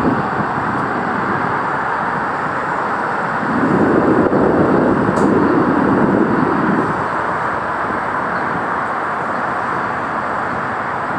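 Steady din of distant city and freeway traffic heard from high up. A louder low rumble swells from about three and a half seconds in and fades by about seven seconds.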